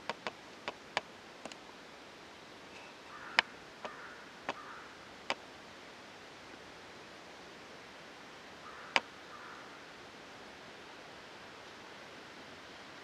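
Steady hiss of a trail camera's microphone with sharp clicks: several in the first second or so, then single ones, the loudest about three and a half and nine seconds in.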